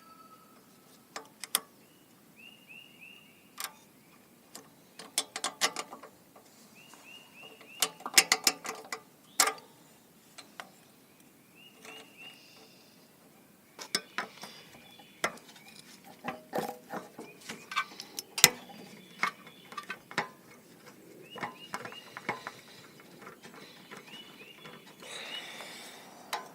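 Scattered metallic clicks and clinks of hand tools and small carburetor parts being worked by hand, coming in clusters with quiet gaps, as a carburetor's throttle linkage and return spring are fitted to a Honda EM3800SX generator engine.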